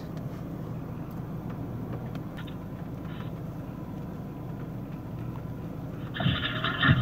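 Steady low hum of a vehicle with its engine running, heard from inside the cab with the windows up. About six seconds in, a harsh, scratchy noise cuts in.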